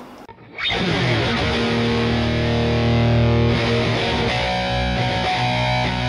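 McLorence JP100 electric guitar played with a distorted tone, starting about half a second in with heavy chords that ring out and change about three and a half seconds in.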